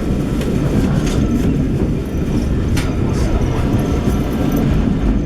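Train carriage running along the track: a steady low rumble with scattered sharp clicks and knocks from the wheels and rails.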